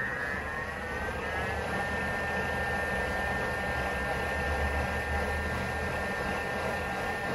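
Electric kitchen-appliance motor running with a steady whir and a whine that rises in pitch over the first second or two, then holds level.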